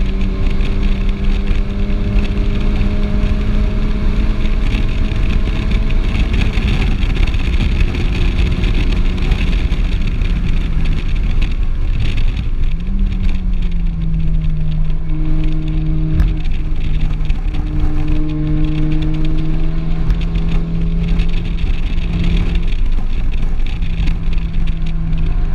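Volkswagen Golf R's turbocharged four-cylinder engine heard from inside the cabin at track speed, over steady wind and tyre noise. The engine note climbs slowly under load, eases off and dips about halfway through, jumps briefly in pitch with a gear change, then holds steady. There is a single sharp click a few seconds later.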